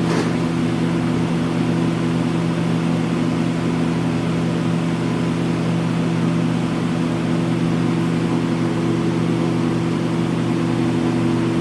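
Steady electric motor hum with an even low drone and hiss that does not change.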